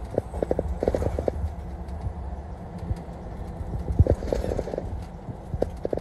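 Road noise of a car at freeway speed, heard from inside the cabin: a steady low rumble with irregular clicks and knocks, a cluster of them about four seconds in.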